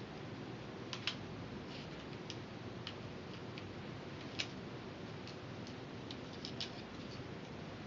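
Craft knife blade cutting through flattened barley straw on a cutting mat: scattered small, irregular clicks and ticks as the blade snaps through the straw fibres, the sharpest about four and a half seconds in, over a steady faint hiss.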